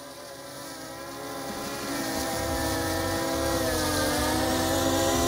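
Electric motors and propellers of an OMP Hobby ZMO Pro VTOL plane in hover (drone) mode as it descends to land. It makes a steady whirring hum whose pitch wavers slightly, growing louder as it comes down.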